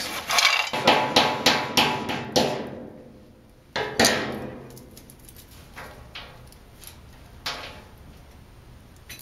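Wooden spatula stirring and scraping roasted cocoa beans in a metal frying pan: a quick run of clattering strokes, about three a second, for the first two and a half seconds. Then a single sharp knock with a ringing decay a little before four seconds in, followed by a few faint clicks as beans are handled and peeled.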